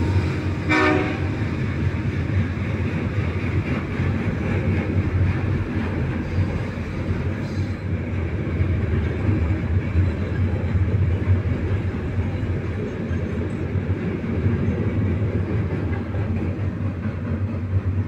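Freight train cars rolling past: a steady rumble of steel wheels on the rails.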